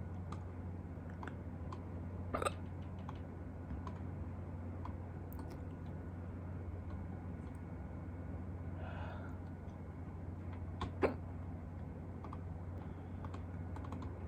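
A person hiccuping: two sharp hiccups, about two and a half seconds in and about eleven seconds in, with a soft breath between them.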